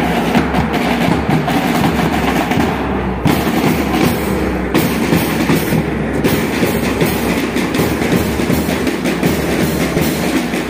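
Brass marching band (Kerala band melam) playing loud and dense: trumpets and sousaphones over steady drumming with a bass drum.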